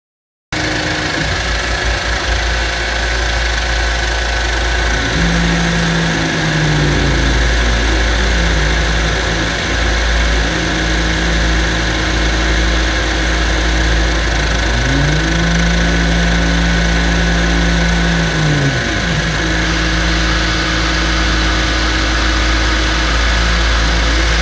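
Shop vacuum running, its hose nozzle sucking metal chips off a milling machine's vise and table. The vacuum starts suddenly about half a second in and runs steadily, with a low rumble under a rushing hiss, and its tone bends up and down a few times.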